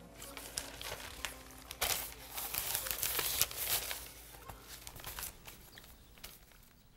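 Newspaper pages rustling and crinkling as they are handled and folded, loudest in the middle and fading near the end.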